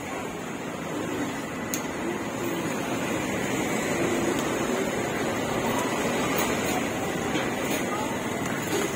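Steady street ambience: an even rushing background noise with a thin constant whine, and faint snatches of distant voices.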